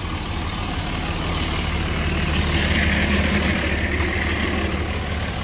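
A truck engine idling steadily, a low even hum. A rushing hiss swells for a second or two in the middle.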